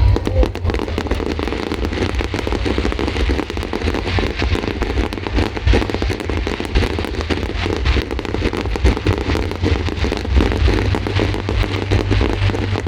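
Aerial fireworks going off in rapid succession: dense crackling over a continuous low rumble of bursts.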